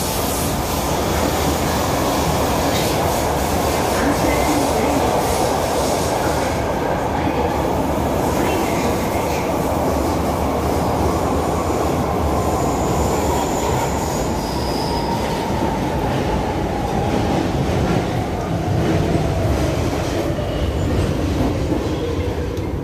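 Brussels metro train heard from inside the passenger car: a steady rumble of the wheels on the rails, with a motor whine that falls in pitch over the last ten seconds or so as the train slows for a station.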